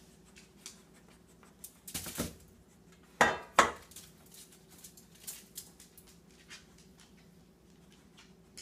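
A metal pie pan clattering and scraping against a countertop, a few sharp clanks with the two loudest close together about three seconds in, then scattered light knocks as a baked cookie is handled.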